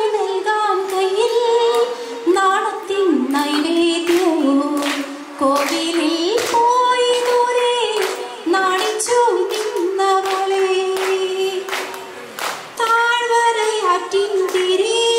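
A woman singing a slow, unaccompanied melody into a microphone, holding long notes between short breaths.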